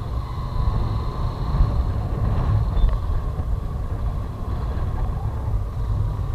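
Honda motorcycle running steadily while being ridden over a sandy dirt track, heard as a continuous low rumble.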